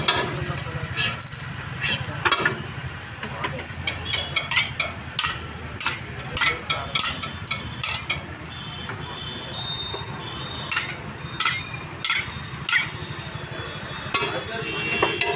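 Steel spoons and cups clinking and scraping at a dosa griddle, with batter frying. There is a steady low hum underneath, and a few short metallic rings partway through.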